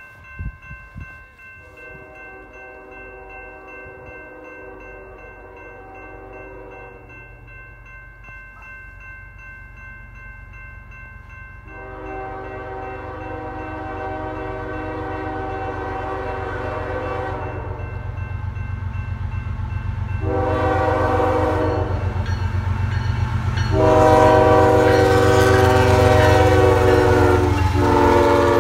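Diesel freight locomotive air horn sounding the grade-crossing signal of long, long, short, long as the train approaches, each blast louder than the last. Under it the locomotive's rumble builds, with a crossing bell ringing early on.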